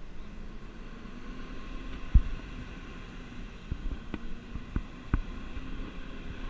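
Rear-loader garbage truck's engine running with a steady low hum while the truck rolls slowly, with a sharp thump about two seconds in and a few lighter knocks near five seconds.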